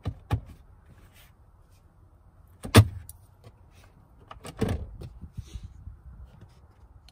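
Plastic centre console of a Mercedes GLK: small clicks as the storage tray is set into the bin, then the armrest lid slamming shut with a sharp knock about three seconds in, the loudest sound, and a softer clunk and rattle near five seconds as the lid is opened again.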